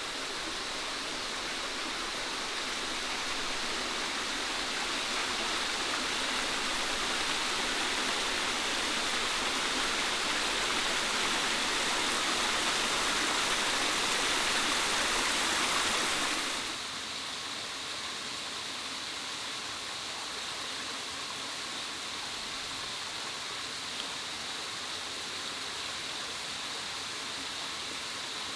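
Steady rushing of water, an even hiss with no distinct events. It swells gradually, then drops abruptly to a quieter level a little past halfway.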